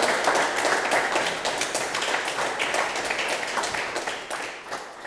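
Applause from a small seated audience: steady hand clapping that thins out and fades away near the end.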